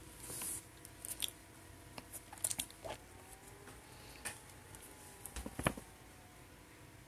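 Faint scattered clicks and light ticks of hands and a cotton swab being handled near the microphone, with a short hiss near the start.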